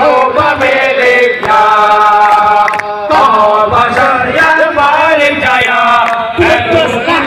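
A large crowd of men chanting loudly in unison on long held notes, the pitch shifting phrase by phrase.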